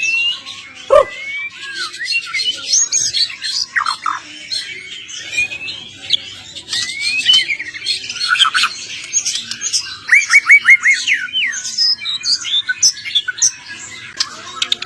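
Songbirds chirping and singing without a break, a busy mix of varied whistles, chirps and short trills, as on a masteran bird-song training recording. Around ten seconds in comes a quick run of about six repeated notes.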